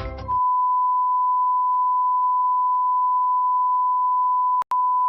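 Steady electronic beep at one unchanging pitch, held for almost five seconds, with a tiny break near the end.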